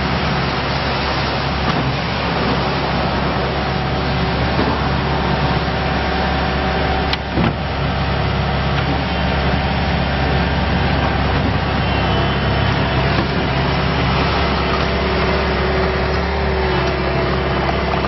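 Bobcat T190 compact track loader's four-cylinder diesel engine running steadily while the loader arms raise and lower the bucket, with a short click about seven seconds in.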